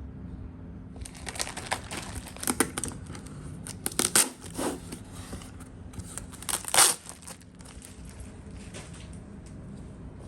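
Retail product packaging being torn open and handled: crinkling and rustling with several sharp tearing strokes, the loudest about four seconds in and again near seven seconds.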